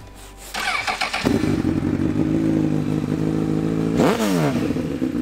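A sport motorcycle's engine cranked on its electric starter, catching within about a second and settling into a steady idle. About four seconds in, the throttle is blipped once and the revs rise and fall back to idle.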